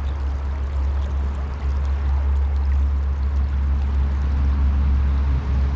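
Fast river water rushing steadily, with a strong deep rumble underneath.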